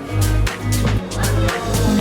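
Music with a steady beat and sustained low bass notes.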